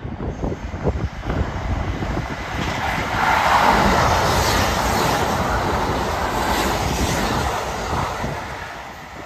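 A Kintetsu 23000 series Ise-Shima Liner limited express electric train passing through the station at speed without stopping. Its running and wheel-on-rail noise swells into a loud rush about three seconds in, holds for several seconds, then fades near the end.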